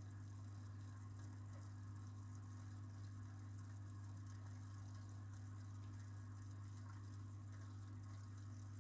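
Faint steady low hum with a light trickle of water, typical of an aquarium filter pump running.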